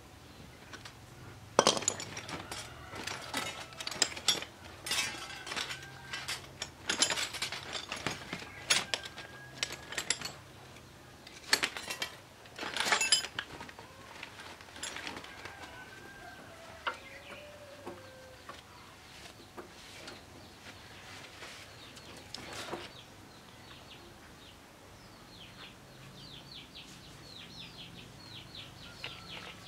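Irregular metallic clinks and knocks of tools and parts being handled on a stopped diesel engine during repair, then chickens clucking and a quick run of high chirps near the end.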